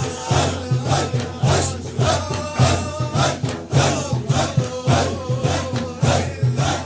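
A Naqshbandi Sufi zikr: a group of voices chanting together in a rhythmic, repeated refrain, with a strong pulse about twice a second.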